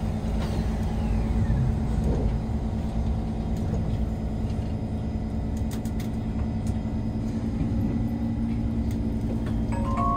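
Cabin rumble of a Kawasaki Heavy Industries C151 metro train pulling out of a station, with a steady low hum and a faint tone that rises slowly in the second half as it gathers speed. A short chime of several notes starts near the end.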